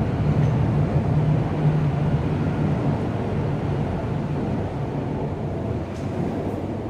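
MTR metro train pulling out of the station and running past the platform. A steady rumble with a low motor hum dies away over the first few seconds, and the whole sound slowly fades as the train leaves.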